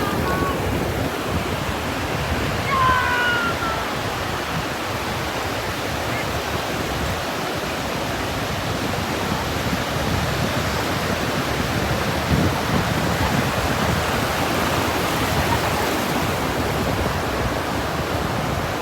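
Ocean surf rushing steadily onto a beach. A couple of short high chirps come about three seconds in.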